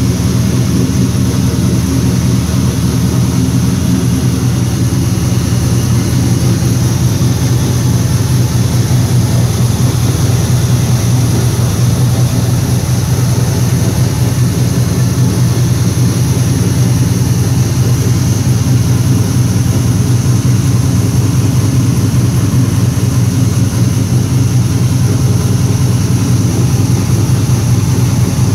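2002 Pontiac Trans Am WS6's 5.7-litre LS1 V8 idling steadily while it warms up after a cold start, with no knocking.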